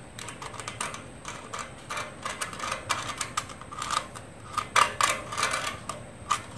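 Irregular light clicks and scratches of a cardboard template being pressed, creased and marked against a rusty steel frame, with a few louder clicks about five seconds in.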